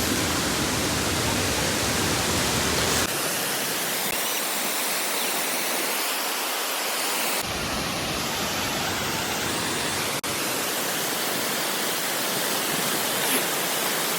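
Steady rush of water from a small waterfall and stream, fast-flowing with rainwater off the hills. The noise shifts abruptly about three and seven seconds in.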